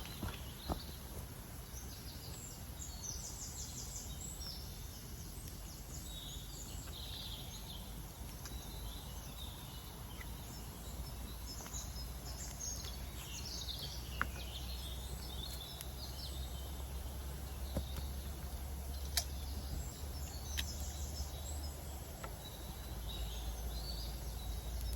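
Small woodland birds chirping and singing now and then over a steady low rumble, with a few sharp clicks.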